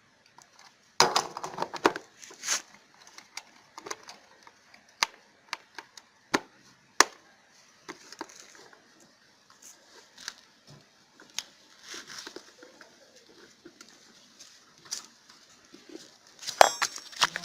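Scattered sharp clicks and knocks of hands working on a generator's plastic air filter housing, fitting the filter foam and clipping the cover back on.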